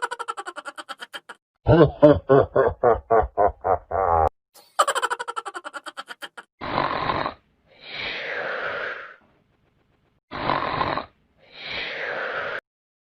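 A run of separate comedy sound effects. First a fast rattling run of clicks, then a string of about ten low, buzzy pulses, then another fast click run. Last come two pairs of long hissy noises.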